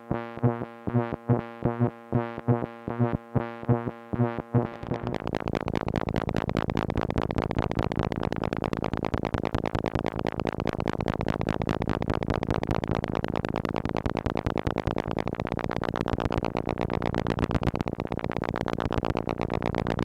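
Moog Mother-32 analog synthesizer driven by a Comdyna GP-6 analog computer running chaotic Lorenz-equation modulation. It plays a quick train of pitched, plucked-sounding pulses, about three a second. About five seconds in it turns into a dense, continuous buzzing tone with a rapid flutter, and its upper pitches sweep slowly up and down near the end.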